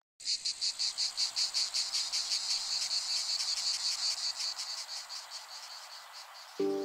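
Rapid, high-pitched insect-like chirping, about five chirps a second, that slowly fades away. Soft music comes in just before the end.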